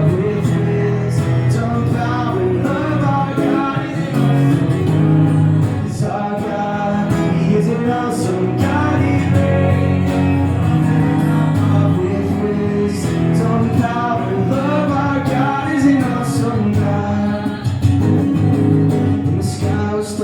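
Loud amplified music from a loudspeaker: a man singing a Christian worship song over guitar backing.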